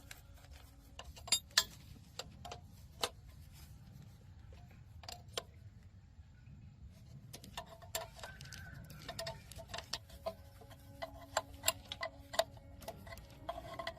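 Scattered light clicks and taps at irregular intervals, busier in the second half, over a faint steady hum.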